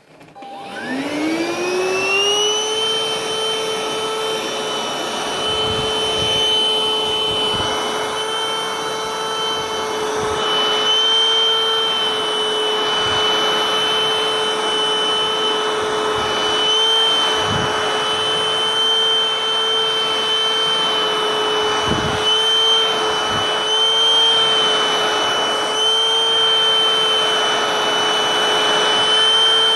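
Vacuum cleaner switched on, its motor spinning up over about two seconds to a steady whine, then running on with slight wavers in pitch and a few low bumps.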